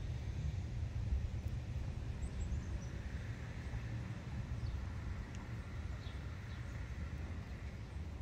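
Outdoor ambience: a steady low rumble, with a few faint, short, falling chirps of small birds now and then.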